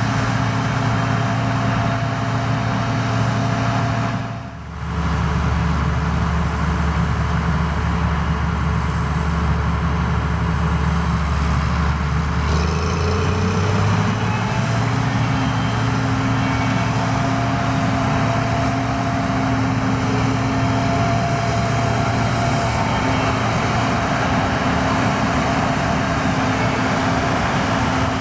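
Gleaner R65 combine harvester running, a steady engine drone over the whirring of its threshing machinery. The sound drops out briefly about four and a half seconds in and comes back on a different steady engine note, which steps up slightly in pitch about halfway through.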